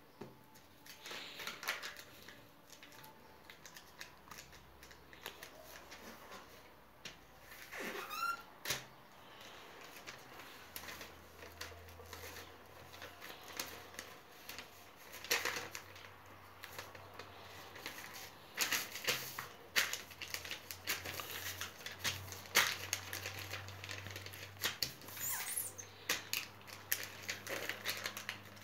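A sheet of paper being folded and creased by hand: scattered rustles and crisp creasing clicks, busier in the second half. A faint low hum sits underneath from about ten seconds in.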